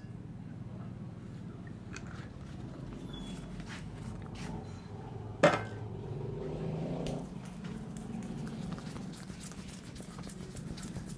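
Barber's hands working a head massage: faint taps and skin sounds over a low steady hum, with one loud, sharp click about halfway through.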